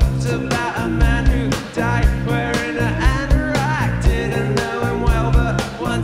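Live indie rock band playing a song: drums keep a steady beat under electric guitars and bass, with a melody line sliding in pitch a few seconds in.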